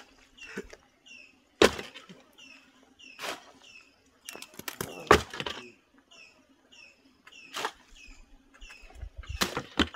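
Sharp knocks and taps at irregular intervals from masons laying block walls, heard over a bird's short high chirps that repeat throughout.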